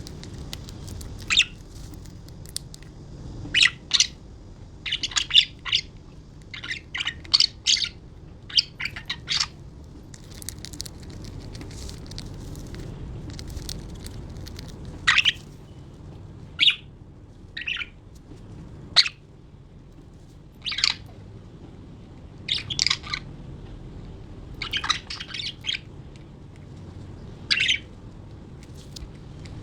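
Budgerigars chirping: short, sharp calls scattered throughout, sometimes several in quick succession, over a low steady background hum.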